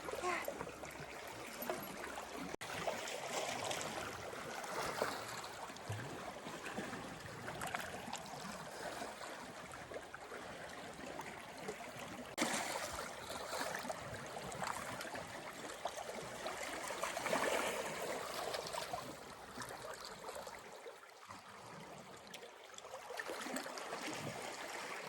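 Lake water lapping and trickling at the shore, with small irregular splashes.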